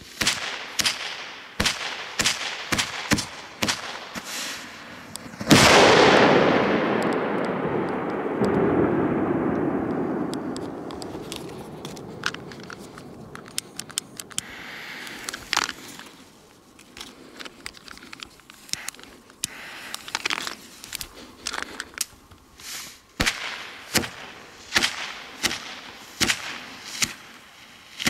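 Crackling pops from a burning firecracker fuse, then a very loud Italian firecracker blast about five seconds in that echoes and dies away slowly over several seconds. Later there are rapid sharp crackles again as another fuse burns.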